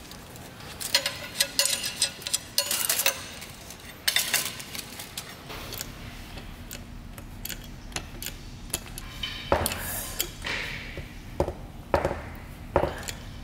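Metal hand tools clinking and jingling as a wrench and steel tape measure are handled, then a manual hydraulic hand pump being worked, its handle strokes giving a series of sharp knocks about half a second to a second apart over a low steady hum.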